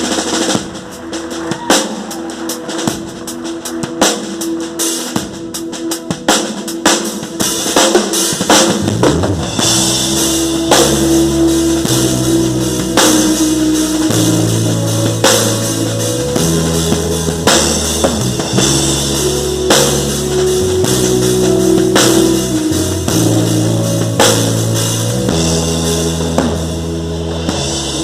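A band playing an instrumental passage: a drum kit with kick, snare and cymbals keeping a steady beat, with a bass line that comes in strongly about ten seconds in.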